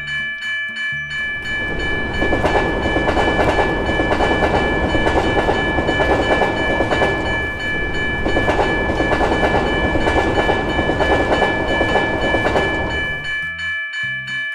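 Level-crossing warning bell ringing at about two strokes a second, while a train passes over the crossing: its loud rumble and wheel clatter build up about two seconds in and die away near the end, leaving the bell alone again.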